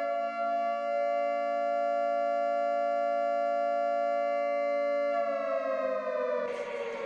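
Outdoor civil-defense tornado warning siren sounding at a steady pitch, then starting to wind down and fall in pitch about five seconds in. A rushing hiss joins near the end.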